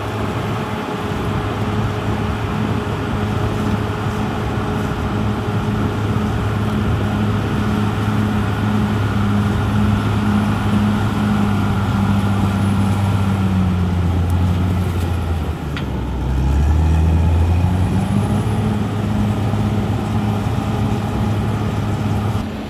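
Cat D6R XL bulldozer's diesel engine running steadily at work. About two thirds of the way through its pitch sags, runs lower and louder for a couple of seconds, then climbs back up, with a single sharp metallic click as the pitch drops.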